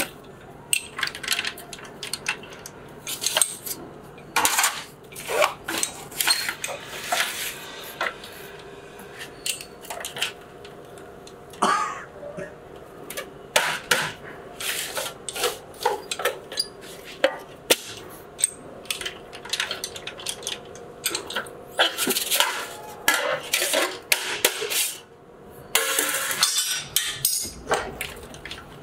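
Steel sheet being worked through a hand-cranked slip roll machine to form a muffler shell: irregular metallic clanks and rattles of the sheet against the rollers and frame, with a thicker run of clatter about three-quarters of the way through.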